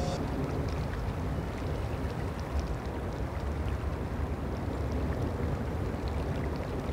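Steady rush of a flowing river, with a low rumble of wind on the microphone.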